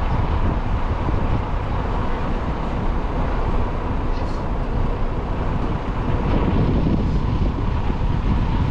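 Steady wind buffeting the microphone, a dense low rumble, as the camera moves through open ground.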